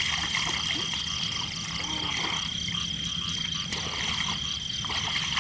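Frogs croaking in a steady chorus from the flooded field.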